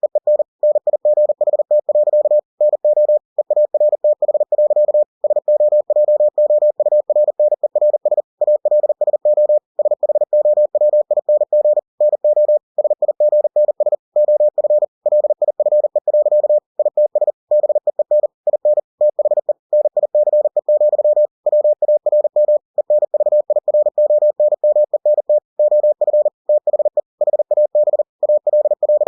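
Computer-generated Morse code at 40 words per minute: a single steady tone keyed on and off in rapid dots and dashes, with short pauses between words, spelling out text.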